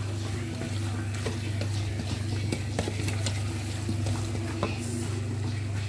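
Wooden spoon stirring a thick stew in an aluminium saucepan, with scattered clicks and scrapes against the pot, over a steady low hum.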